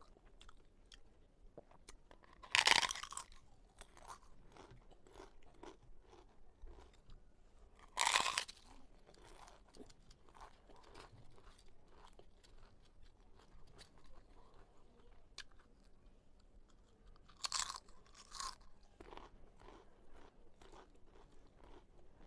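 Close-miked bites into crisp fried papad, each a loud crackling crunch: one a few seconds in, one around eight seconds, and two close together near eighteen seconds. Softer crunchy chewing runs between the bites.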